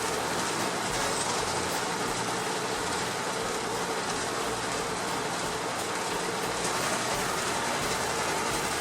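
Machinery running with a steady, even clattering noise that does not change.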